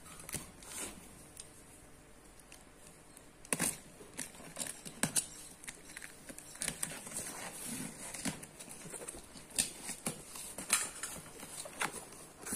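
A plastic-wrapped cardboard box being cut and opened by hand: a box cutter slitting the packing tape and wrap, then cardboard flaps and plastic rustling. It is quieter for the first few seconds, then comes as irregular sharp clicks, scrapes and crinkles.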